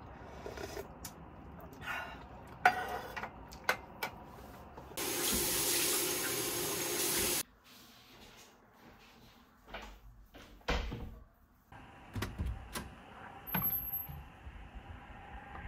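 Scattered light clicks, then a shower running hard for about two and a half seconds and cutting off suddenly. After it come a few knocks and clicks of a bathroom door and its handle as the door is opened.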